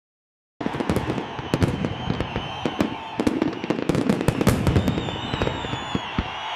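Fireworks sound effect: a dense barrage of bangs and crackles with low booms, starting abruptly about half a second in. Near the end the booms stop and a thinner, higher hiss with faint whistling tones carries on.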